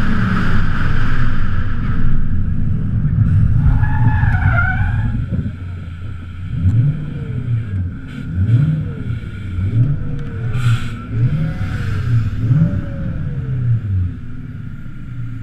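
Supercharged V8 of a BMW E36 Compact drift car running hard with tyre noise, and a short tyre squeal about four seconds in. The engine then eases off and is blipped about six times, each rev rising and falling, before settling to a steady idle near the end.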